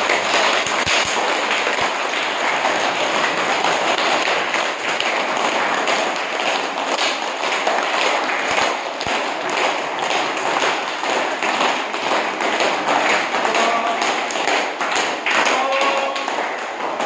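A large group of schoolchildren clapping continuously with flat palms, many hands overlapping into a steady, dense patter of claps, as part of a clapping exercise.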